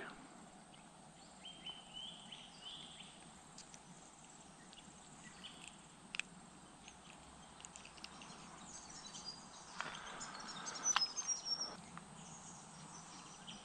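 Faint bush ambience with scattered high bird chirps, a few small clicks, and a brief rustle about ten seconds in.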